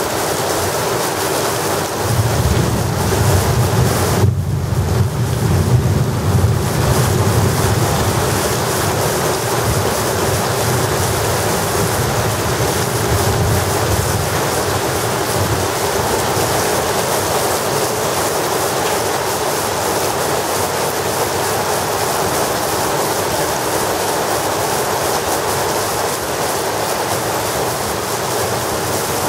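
Heavy thunderstorm rain pouring down in a steady, even hiss. A low rumble swells under it from about two seconds in, lasts several seconds, and returns more weakly a little later.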